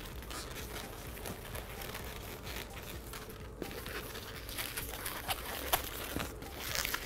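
Long green latex modelling balloons being handled and twisted: the latex rubs and crinkles against itself and the hands, in short scratchy strokes that grow sharper and more frequent in the last couple of seconds.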